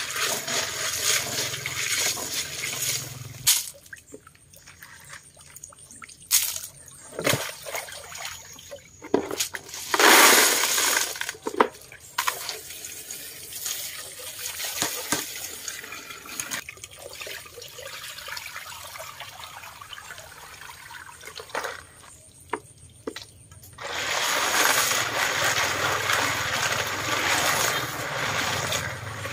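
Water sloshing and splashing as freshwater snails are rinsed by hand in a plastic basin and tipped into a plastic colander, with scattered sharp knocks. There is a loud pour about ten seconds in and a longer stretch of sloshing and running water near the end.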